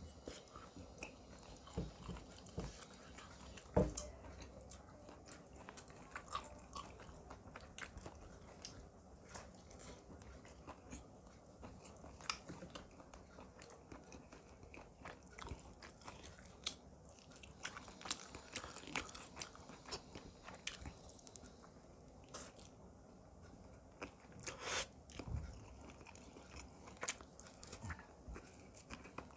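A person eating close to the microphone, chewing and biting a meal of chicken korma with rice and onion: irregular crunchy bites and chewing, with a louder crunch about four seconds in and another about twenty-five seconds in.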